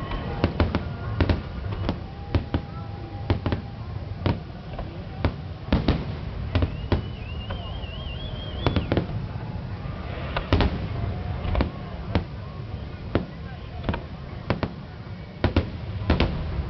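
Fireworks display: an irregular run of sharp bangs, several a second at times, over a steady low rumble, with a wavering, rising whistle about seven seconds in.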